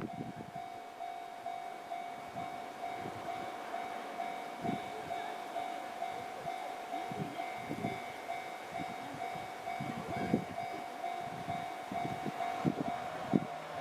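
Level-crossing alarm bell ringing steadily, with scattered low clunks from a JR 313 series train's wheels on the rails.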